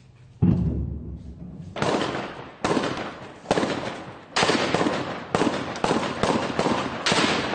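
Gunfire in a built-up area: a deep boom about half a second in, then a string of sharp shots about one a second, coming closer together near the end, each trailing a long echo off the buildings.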